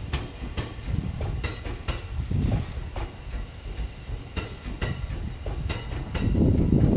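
JR East 209 series 500 electric train rolling slowly through depot trackwork: wheels clicking irregularly over rail joints and points over a low rumble, which grows louder about six seconds in.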